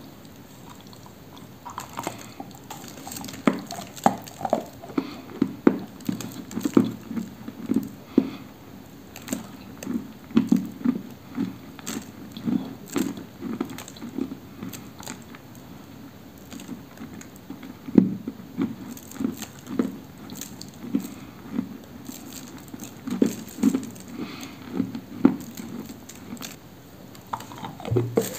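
Dry apricot-coloured clay being bitten and chewed: a string of sharp, dry crunches, roughly one a second, easing off briefly about halfway through.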